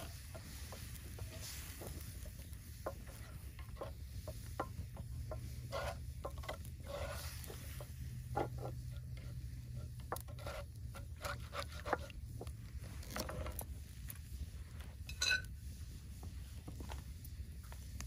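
A spatula stirring and scraping ground taco meat in a cast iron skillet over a wood fire, with scattered clicks and faint sizzling. A brief pitched ring about fifteen seconds in is the loudest moment.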